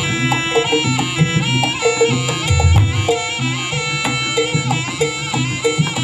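Live East Javanese jaranan music: a slompret (double-reed shawm) plays a nasal, wavering melody over kendang drum strokes and a struck metal tone repeating about once a second.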